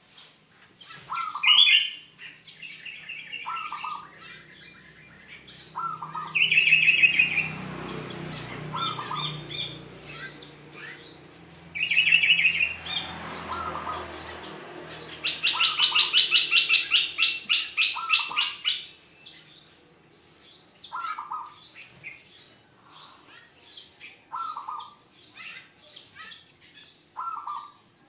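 Caged zebra dove (perkutut) singing, short cooing phrases repeated every few seconds, mixed with louder high chirping trills, the longest a rapid trill about halfway through. A low rumble runs under the middle part.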